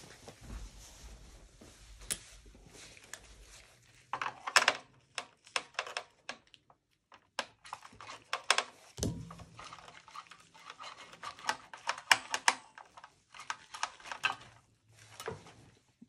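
Irregular clicks, taps and short scrapes of a screwdriver and hands working at the screws and plastic shroud of a Dell OptiPlex 7080's CPU cooler, with a dull thump about nine seconds in.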